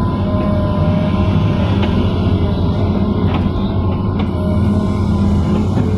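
Hitachi Zaxis 200 excavator's diesel engine and hydraulics running steadily under load, heard inside the cab, with a steady whine over a low drone while the boom swings a loaded bucket and dumps soil into a dump truck. A few faint knocks come partway through.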